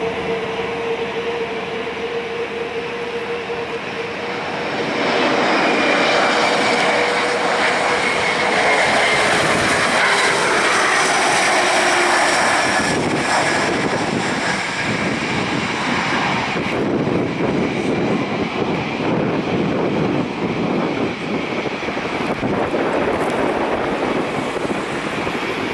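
Bombardier CRJ-1000 regional jet's two rear-mounted General Electric CF34 turbofans on landing approach: a steady whine that drifts slightly down in pitch, growing louder about five seconds in to a rushing peak as the jet passes low, then a broad steady engine rush as it rolls out on the runway.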